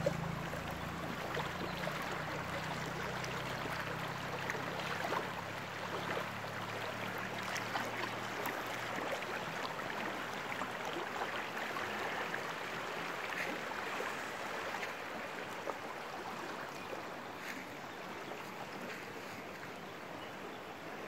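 Shallow river running over rocks: a steady rushing of water, a little fainter near the end.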